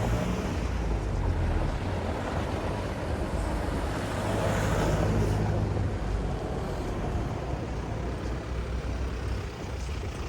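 Town-centre road traffic: a motor vehicle passing close by over a steady low rumble of traffic, loudest about halfway through and fading afterwards.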